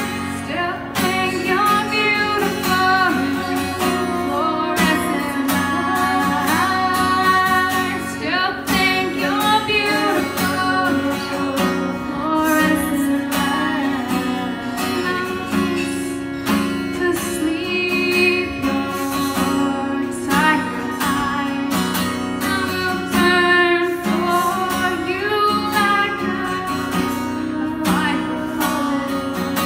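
A woman singing into a microphone over her own strummed acoustic guitar.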